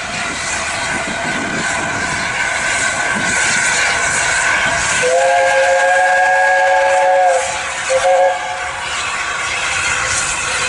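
LNER A4 Pacific steam locomotive No. 60007 Sir Nigel Gresley passing with its train, then sounding its chime whistle. One long blast starts about five seconds in, followed by a short second blast.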